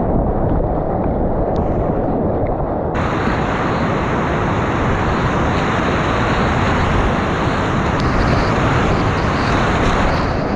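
Whitewater rapids rushing and splashing around a kayak, heard close up from the paddler's camera as a loud, steady roar. About three seconds in, the sound turns suddenly brighter and hissier.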